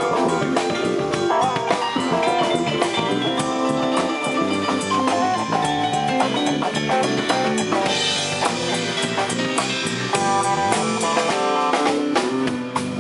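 Live band playing an instrumental passage: electric guitar, bass guitar and a drum kit with cymbals.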